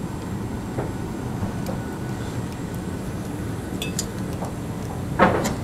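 Small metallic clicks and clinks from bicycle parts and tools being handled, with a louder knock just before the end, over a steady low rumble of background noise.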